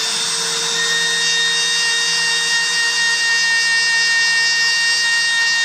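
Dremel rotary tool running at a steady high-pitched whine, its felt polishing bob, loaded with polishing compound, held against a piece of slag to polish it.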